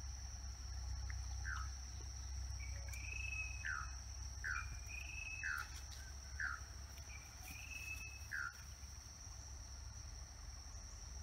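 Steady high-pitched drone of insects. Over it a bird calls again and again in short falling notes, with a few longer, higher notes among them, over a low rumble.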